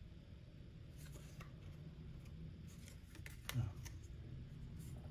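Faint handling of trading cards and a foil card-pack wrapper on a stone countertop: scattered light clicks and rustles, with one slightly louder tap about three and a half seconds in.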